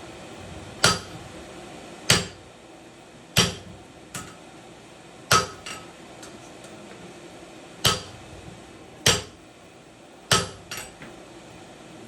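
Hammer blows on hot steel at an anvil during hand forging. There are seven hard strikes, mostly about a second and a quarter apart with a longer pause in the middle, and three lighter taps in between; each blow rings briefly.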